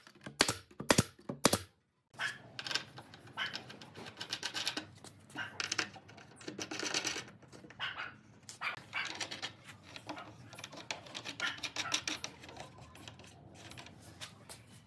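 Pneumatic nail gun firing a quick run of sharp shots, about two a second, driving nails into pine slats. After a short gap, irregular wooden knocks, clacks and rubbing as the folding table's hinged leg and round wooden pivot knob are worked by hand.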